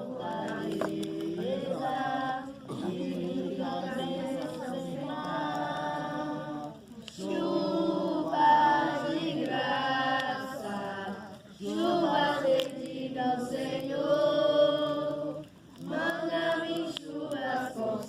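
A group of voices singing together, in sung phrases of a few seconds each with short breaths between them.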